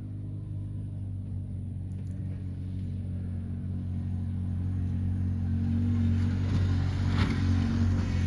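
A motor vehicle's engine running with a steady low hum that grows louder over several seconds, with a brief knock about seven seconds in.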